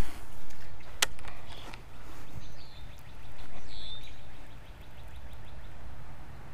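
A fishing rod and reel being cast and retrieved, with one sharp click about a second in and faint steady ticking from the reel. A bird chirps a few times.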